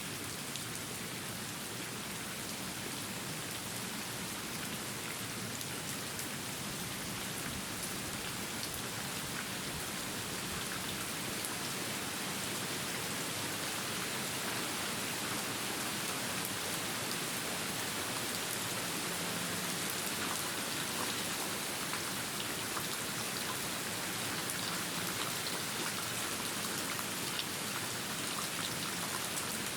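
Steady rain falling, a dense even hiss with individual drops ticking through it, slowly growing a little louder.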